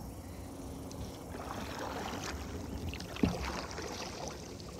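Water sloshing and splashing around a plastic kayak, with one knock on the hull about three seconds in.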